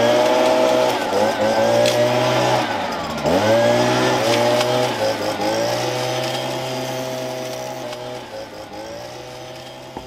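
Handheld petrol leaf blower running at high throttle. Its engine note dips sharply and comes straight back up about three seconds in, then the sound grows gradually fainter toward the end.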